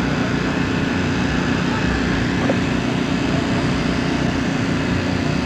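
A steady, loud, low engine drone that holds without change.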